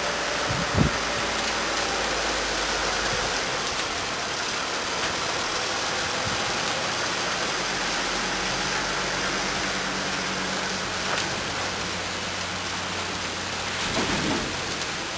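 Steady rain falling on wet pavement, with the low running of a Mercedes-Benz Sprinter tractor's engine as it slowly pulls a semitrailer past. A single short thump about a second in.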